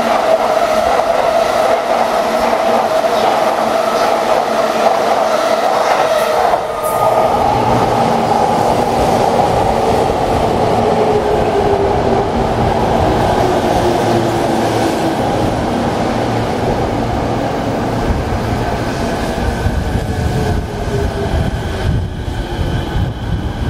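Electric commuter trains at a station platform. A steady high whine runs for the first several seconds. Then a Tokyo Metro 05N series train pulls in, its wheels rumbling on the rails and its motor whine falling in pitch as it brakes toward a stop.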